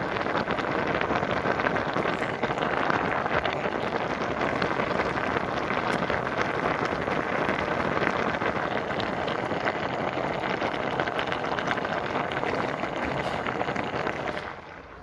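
Pot of water boiling hard with noodles in it: a dense, steady bubbling and crackling that drops away sharply near the end.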